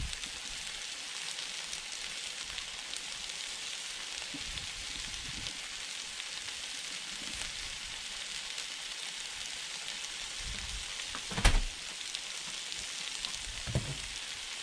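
Sliced bell peppers, onions and steak strips sizzling steadily on a hot 22-inch Blackstone griddle. A sharp knock comes about eleven seconds in and a softer one near the end.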